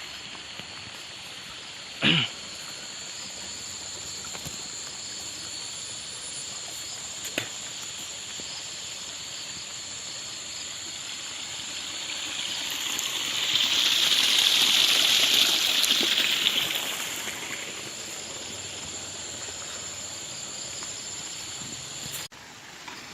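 Rural outdoor ambience: a steady high insect drone, with a louder buzzing hiss swelling up and fading away in the middle, and a single short knock about two seconds in.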